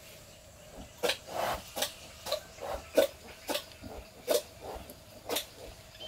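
A pig giving a run of about ten short calls, roughly two a second.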